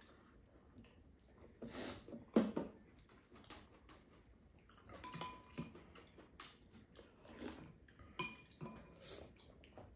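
Spoons clinking and scraping against bowls and a pan at a meal: scattered soft clicks, with one louder knock about two and a half seconds in.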